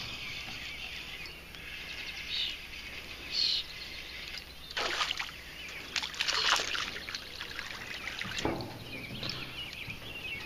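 A hooked bass splashing and thrashing at the water's surface as it is reeled in. There are sharp splashes about five seconds in, a longer run of them around six to seven seconds, and one more near eight and a half, over a steady hiss.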